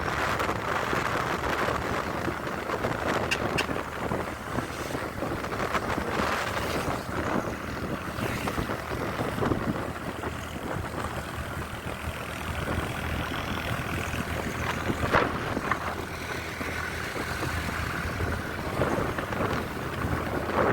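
Heavy rain falling, a steady dense hiss with a few sharp ticks of drops striking nearby.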